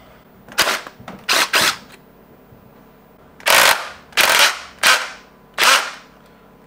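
DeWalt cordless impact driver hammering in about seven short bursts, driving a standard (non-impact) screwdriver bit against the very tight chuck fastener of a Ryobi BD1285R cordless drill until it breaks loose. It doesn't sound too good, and the owner thinks the blows may have damaged the drill's internal parts.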